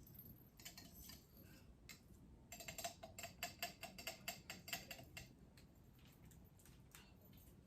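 Whole coriander seeds being shaken out of their container, a faint run of rapid small clicks, busiest from about two and a half to five seconds in.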